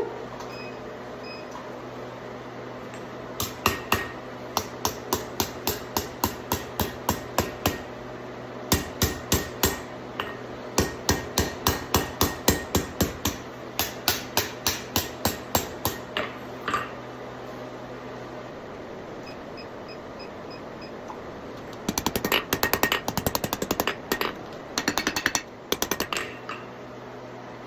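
Hand hammer striking hot 3/8-inch round steel bar on an anvil, rolling the bar up into scroll curls: regular blows about two a second, then after a pause a fast flurry of quicker strikes.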